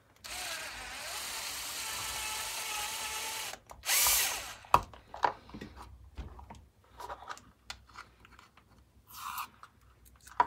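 Bosch power drill running for about three and a half seconds as it bores a hole through a plastic speaker case, with a steady motor whine. A short loud burst of noise comes about four seconds in, followed by light clicks and knocks of handling.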